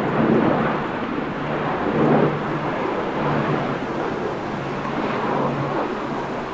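Strong wind buffeting the microphone in gusts, over the low drone of the Lockheed C-130 Hercules' four turboprop engines.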